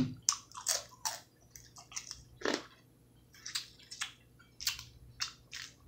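Chewing crab meat close to the microphone, with small clicks and cracks of crab shell being picked apart by hand: short, irregular sounds, the clearest about two and a half seconds in.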